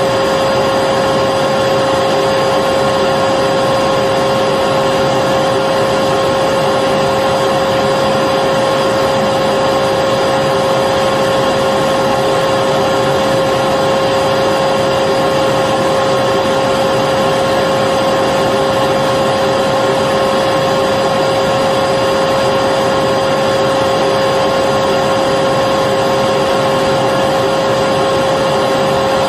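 Electric vacuum cleaner running continuously at a steady speed, a constant whoosh of air with a fixed motor whine.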